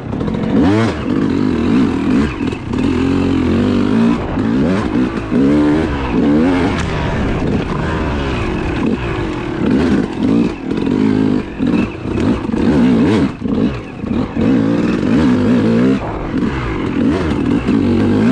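Yamaha YZ250 single-cylinder two-stroke dirt bike engine being ridden, revving up and dropping off again and again as the throttle is worked.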